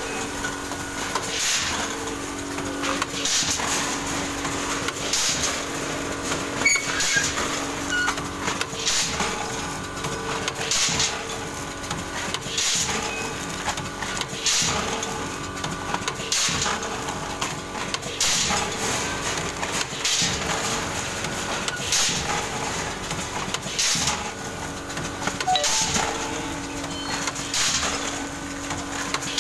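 Automatic multihead pouch packing machine running, with a short sharp stroke about every two seconds as each toffee pouch is sealed and cut, over a steady machine hum.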